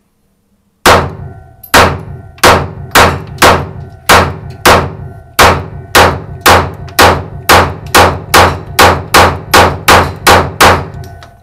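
A handgun fires about twenty rapid shots in an indoor shooting range, each crack ringing briefly in the enclosed lane. The shots start about a second in, are widely spaced at first, then come two to three a second, and stop just before the end.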